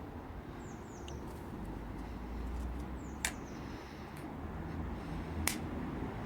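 Two sharp cracks about two seconds apart from a Weihrauch HW45 spring-piston air pistol being shot, over a steady low outdoor rumble, with small birds giving short high falling chirps.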